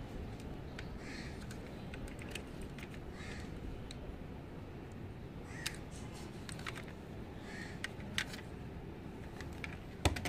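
Small clicks and taps of a diecast model car being handled in the fingers, ending with two loud knocks as it is set down among other diecast models in a plastic tub. A bird calls about every two seconds in the background.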